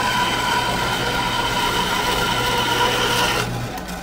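Horizontal metal-cutting bandsaw running steadily as its blade cuts through steel angle iron under coolant. About three and a half seconds in the cut finishes and the saw shuts itself off, and the motor hum stops.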